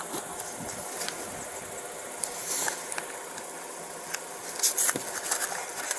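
Steady vehicle and street noise, picked up by a police body camera, with scattered sharp clicks and two short rustles.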